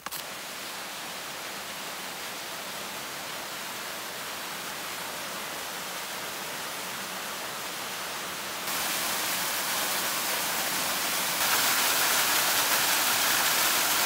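Small waterfall pouring off a rock ledge and splashing into a shallow pool: a steady rushing of water that gets louder in two sudden steps, about nine and eleven seconds in.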